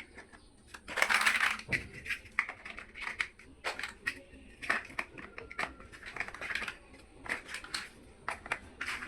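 Small plastic building bricks clicking and rattling as they are handled and snapped together, with a louder rustle of pieces about a second in.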